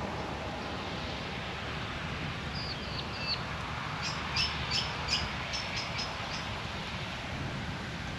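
A bird calling over steady rushing background noise: a short whistled call about two and a half seconds in, then a quick run of sharp chirps for about two seconds.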